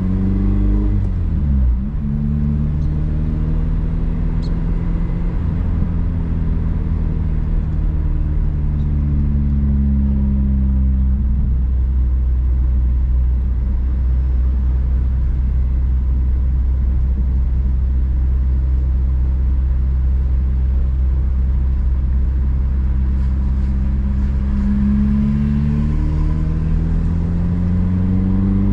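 Honda Civic Si engine under way: its pitch falls as the car slows, with a quick drop and recovery about two seconds in, then holds steady for a long stretch before climbing again as the car accelerates near the end.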